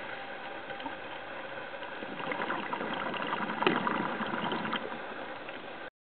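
Underwater reef ambience: a steady hiss with scattered crackling clicks. The clicks grow denser and louder from about two seconds in, with one sharp click near the middle. The sound cuts off shortly before the end.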